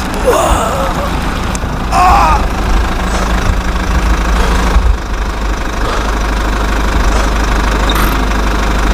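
Steady, low engine rumble like a heavy truck engine idling, with brief high chirps early on.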